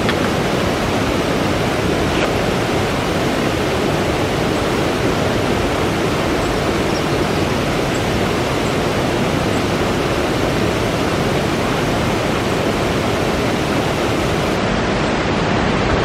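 Rocky mountain stream cascading over boulders and small falls: a steady, even rush of water.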